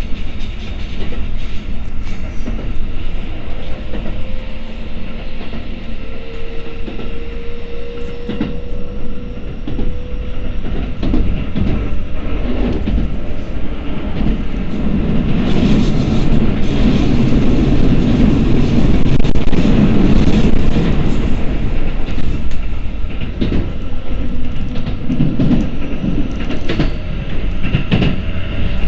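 Keikyu 1000 series electric train running, heard from inside the car: a steady rumble with wheels clicking over the rail joints. A faint whine rises slowly through the first third, and the rumble grows louder for several seconds around the middle.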